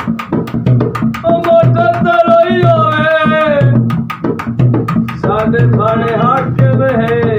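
A man sings in long held notes to his own hand-played double-headed barrel drum, a steady beat of deep strokes with quicker sharp slaps between them. The singing starts about a second in, breaks off briefly a little before halfway, and resumes.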